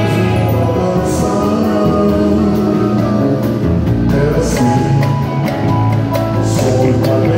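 A live band playing, with a five-string electric bass, drums and a hand-held tambourine. Bright crashes come about a second in and again around four and a half and six and a half seconds.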